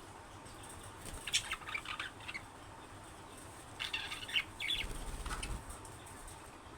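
Budgerigars chattering in two short bursts of chirps and squawks, about a second in and again around four seconds in, with a low fluttering rumble near the end of the second burst.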